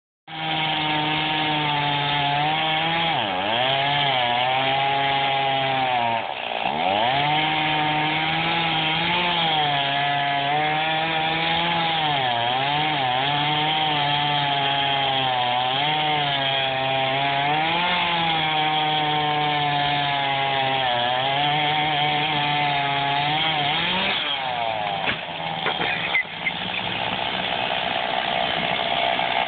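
Gasoline chainsaw running at cutting speed, its engine note dipping again and again as it bogs under load in the cut. Near the end the steady run breaks up into a rough, irregular sound with knocks.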